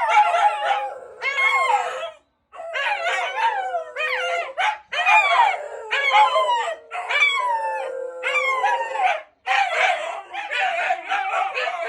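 Shiba Inu dogs howling together in long, wavering phrases that overlap, broken by short pauses; the calls turn shorter and choppier in the last couple of seconds. The howling is a reaction to a public-address broadcast.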